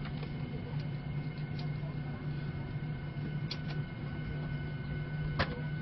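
Steady cabin hum inside a Boeing 737 MAX 8 airliner, a low drone with a faint high whine over it. Several short clicks sound over it, the loudest near the end.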